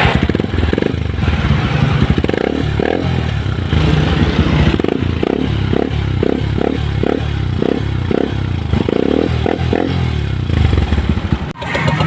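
Honda TMX 125's single-cylinder four-stroke engine revved in quick repeated blips through an SC Project canister exhaust with its silencer insert fitted, and still loud with the silencer in.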